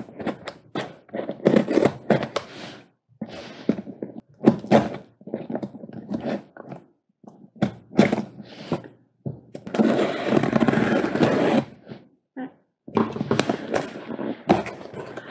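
Cardboard shipping box being opened by hand: a run of short scratches, taps and knocks on the cardboard, then a longer rasping tear of tape and cardboard about ten seconds in and another near the end.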